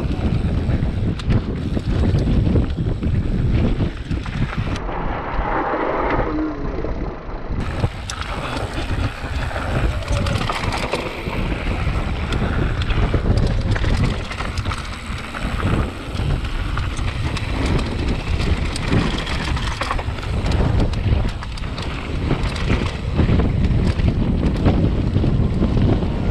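Wind buffeting the action camera's microphone as a mountain bike rolls fast down a dry gravel trail, with the crunch of tyres on loose gravel and frequent clicks and rattles from the bike over bumps.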